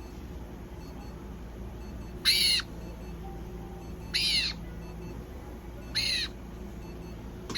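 Black-headed caique calling: a short shrill call, rising and falling, repeated about every two seconds.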